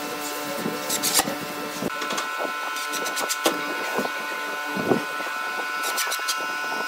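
Light clicks and knocks of hand work on a pine board as small screws are set into metal butt hinges, over a steady hum, with a short run of clicks near the end.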